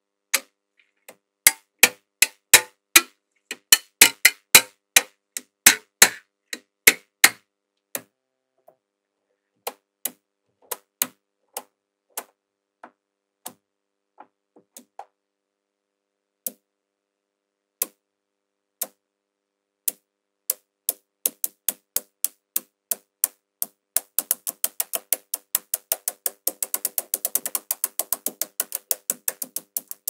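Small magnetic balls clicking sharply as they snap onto one another: a quick run of loud clicks in the first several seconds, scattered clicks through the middle, then rapid, closely spaced clicking from about 24 seconds in.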